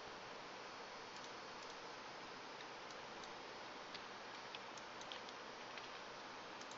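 Faint steady hiss with a few soft, scattered clicks of a computer keyboard and mouse.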